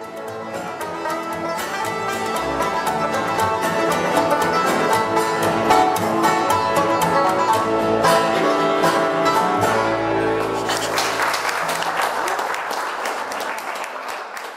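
Bluegrass string band playing at a live jam. The tune ends about ten seconds in and gives way to applause.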